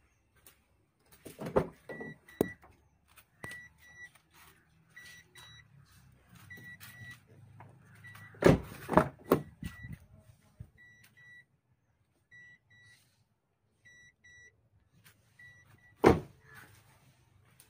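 A car's electronic warning beeper sounding short high double beeps about every second and a half. Loud clunks break in three times, a cluster shortly after the start, another about halfway and one near the end, over a faint low hum.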